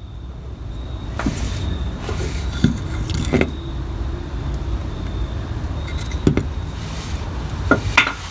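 A wrench tightening the adjustment bolt of a power steering pump: a handful of short, sharp metal clicks and knocks over a steady low rumble.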